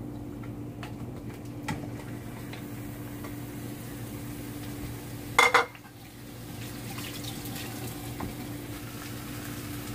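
Kitchen dishware sounds: a few light clinks and knocks of bowl and utensil as meat is scooped into a pan, then one short, loud clatter of dishes about halfway through. A steady low hum runs underneath.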